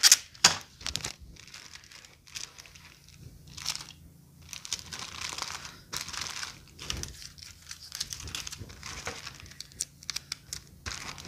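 Plastic poly bags crinkling and rustling in irregular handling, with a few short tearing sounds.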